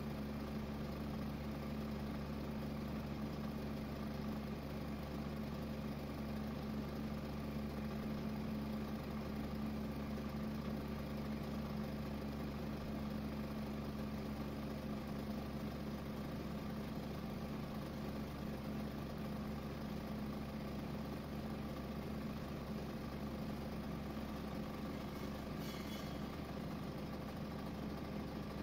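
A steady machine hum with a few constant tones, unchanging throughout, with a brief faint rasp near the end.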